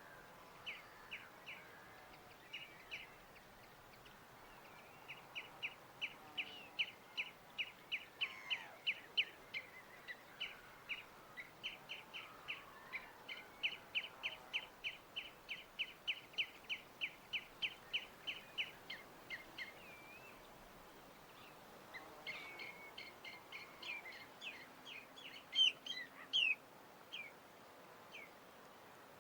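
A small bird calling a long, even series of short, high chirps, about three a second, over a faint steady hiss; near the end comes a quicker burst of more varied chirps and twitters.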